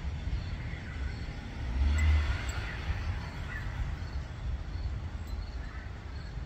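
Wind buffeting a phone microphone as a low, uneven rumble, swelling louder about two seconds in, with a few faint chirps above it.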